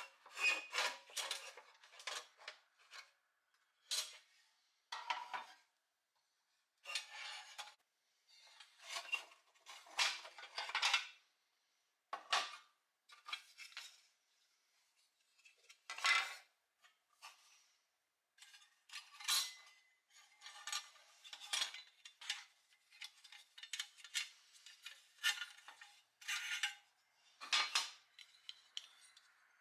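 Pressed-steel and plastic parts of a 1970s Tonka toy dump truck handled and taken apart by hand: irregular clinks, taps and rattles of thin metal pieces, in short clusters with brief pauses between.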